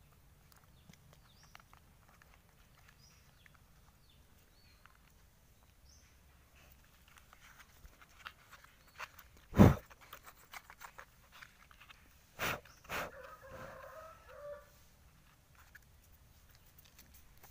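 Small clicks and taps of hand tools on an electric water pump's housing while its bolts are taken out, with one loud thump about ten seconds in and two sharp knocks a few seconds later. Right after the knocks, a chicken clucks briefly.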